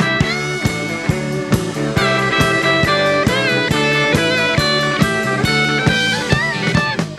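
Blues-rock band playing an instrumental passage: an electric guitar lead with bent, sustained notes over bass and a steady drum beat.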